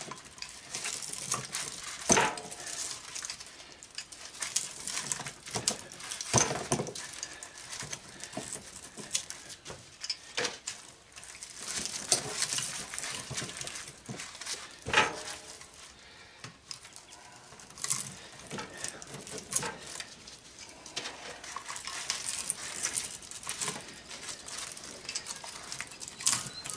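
Channel-lock pliers gripping, twisting and pulling copper winding out of an electric motor's steel stator core, with irregular metallic clinks, scraping and rattling and a few sharper knocks.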